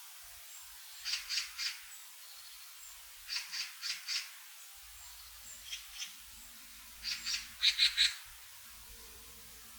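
A wild bird giving short series of harsh calls, three to five quick notes at a time, about every two to three seconds, with a faint low rumble underneath in the second half.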